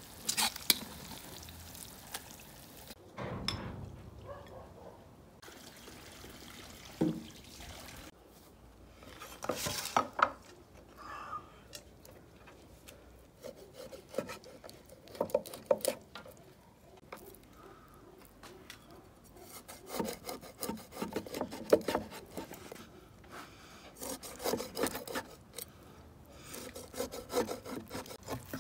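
Cleaver cutting and scoring a whole eel on a wooden cutting board: bunches of short rasping strokes and knocks through the skin and flesh, coming thickest in the second half.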